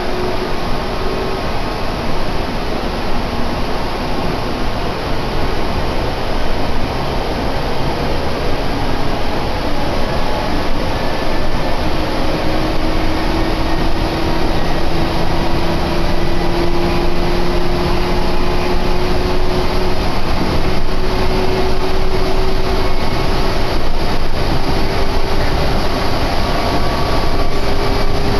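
Meitetsu electric train running along the line: a steady rumble and rush of running noise, with a motor whine that slowly rises in pitch through the second half as the train gathers speed.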